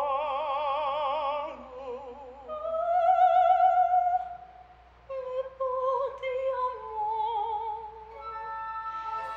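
Operatic soprano singing with a wide vibrato, rising to a loud held high note about three seconds in, then carrying on in further phrases after a short break.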